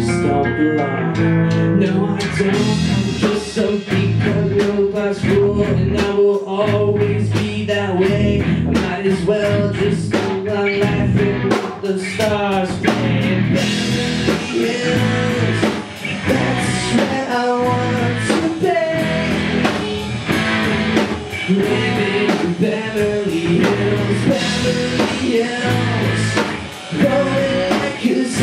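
Live rock band playing: two electric guitars, an electric bass and a drum kit, with a steady drum beat.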